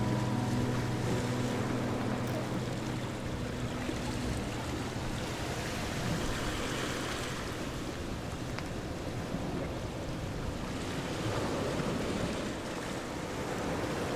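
Wind rushing across the microphone in uneven gusts. Background music fades out about four seconds in.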